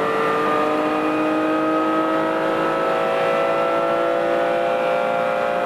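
Ferrari 512TR's flat-12 engine heard from inside the cabin, accelerating hard, its pitch rising slowly and steadily with no gear change.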